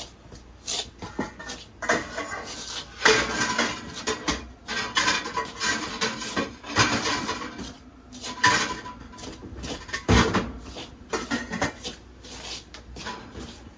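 A fork scraping and clinking against a mixing bowl while stirring wet dumpling dough, in an irregular run of scrapes and taps, with one heavier knock about ten seconds in.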